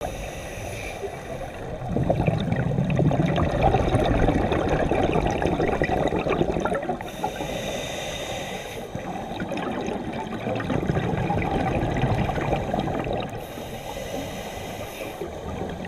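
Scuba diver breathing through a regulator underwater: a short hiss on each inhale, then a long bubbling rumble as the exhaled air leaves the regulator, in slow cycles of about six seconds.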